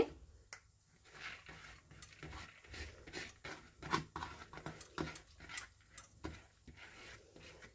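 Soaked chana dal and black urad dal sliding and tipped from a plastic bowl into a pressure cooker: a faint, irregular patter of small ticks and scrapes.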